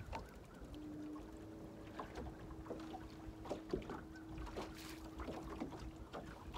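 A small motor's steady hum at one unchanging pitch starts about a second in and stops near the end, with a few light clicks and knocks alongside.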